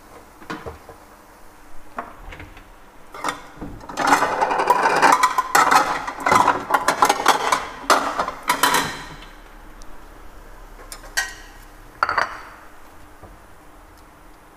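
Metal clattering and scraping as the air fryer oven's wire rack and a stainless steel tray are handled while the roast pork belly is taken out: a few light clicks, then several seconds of dense rattling and scraping, then two separate knocks near the end.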